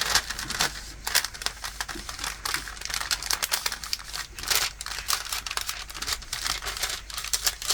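A diamond painting canvas, with its plastic cover film, crinkling and crackling in irregular bursts as it is handled and pressed flat to work out a fold.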